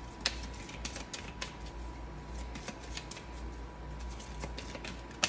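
Oracle card deck being shuffled by hand: a steady run of small card clicks and flicks, with a sharper snap just before the end.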